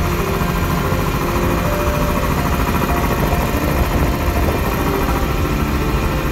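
Central Pneumatic 5 HP twin-cylinder air compressor pump running steadily and loudly, belt-driven by an electric motor on a variable frequency drive.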